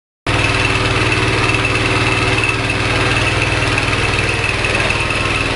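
Small 5.5 hp petrol engine of a horizontal pellet-making machine running at a steady speed. It cuts in abruptly just after the start.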